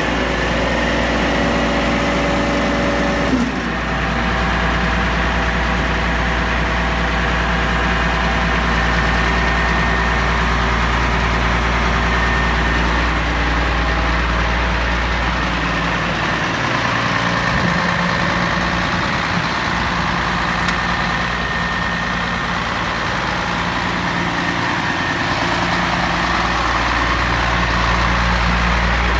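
Scania 114.380's 11-litre straight-six diesel idling steadily. A higher hum over it in the first few seconds stops with a click.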